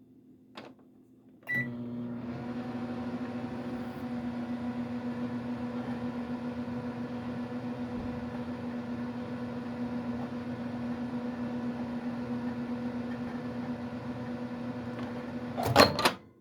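Microwave oven starting with a click and a short beep, then running with a steady hum for about fourteen seconds. It stops near the end with a few loud clicks.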